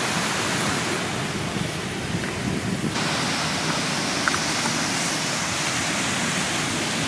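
Steady rush of ocean surf and wind on the beach, growing hissier about three seconds in.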